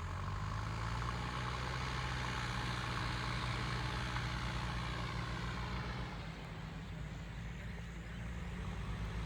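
JCB 3DX backhoe loader's diesel engine running steadily at work. A louder rushing noise lies over the engine for about the first six seconds, then eases.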